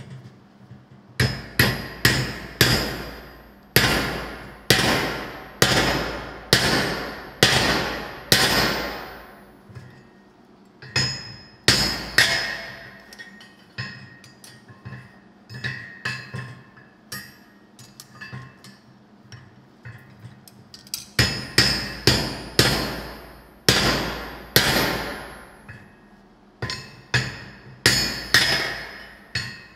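Sledgehammer blows ringing on a hot steel hammer-head billet and a handled punch held on it at the anvil, about one blow a second. There are heavy runs at the start and near the end, with lighter, sparser blows in the middle.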